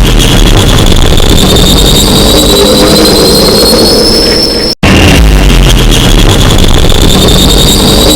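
Loud 'scientist toilet' horn sound effect playing on a loop: a rough, noisy blast with a high tone that slowly rises in pitch. It cuts out for an instant just before five seconds in, then starts over.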